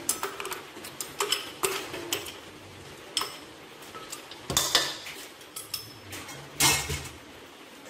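A metal spoon clinking and scraping against a small bowl and the rim of an aluminium cooking pot as food is scooped into the pot, with a few sharp clinks and two louder clatters in the second half.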